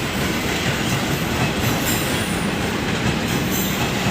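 A train running past close by: a steady, even rumble of wheels on the rails.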